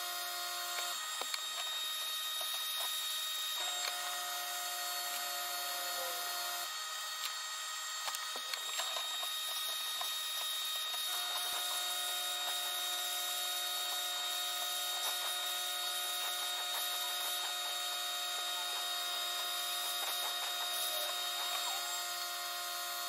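Sandblasting cabinet in use: the air blast gun hisses steadily as grit is blasted onto a metal vise part, with light ticking from the abrasive. A steady whistle rides on the hiss and drops out twice before coming back.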